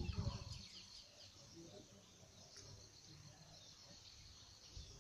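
Quiet outdoor ambience: small birds chirping, mostly in the first second, over a faint steady insect drone. A few low thumps come right at the start.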